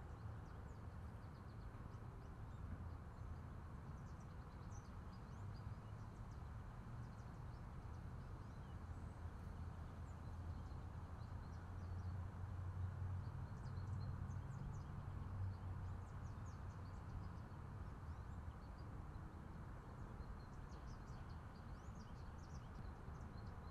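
Faint outdoor field ambience: a steady low rumble that swells a little in the middle, with scattered faint high bird chirps.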